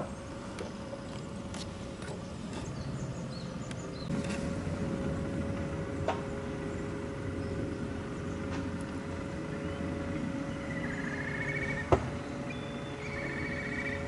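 Outdoor ambience of steady distant road-traffic rumble with a faint steady hum, one sharp click about twelve seconds in, and short bird trills near the end.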